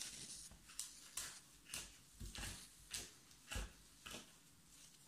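Dried, crisp mullein leaves being cut up: a faint, irregular series of short, crisp snips and crackles, about two a second.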